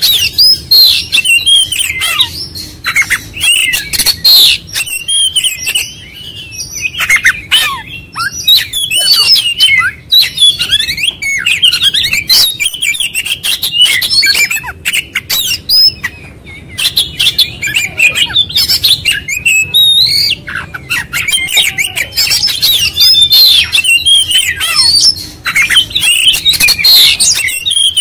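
Caged Oriental magpie-robin (kacer) singing loud and non-stop: a fast, varied stream of whistles, chirps, glides and harsh squawky notes with only brief pauses, the bird running through its full repertoire of song material.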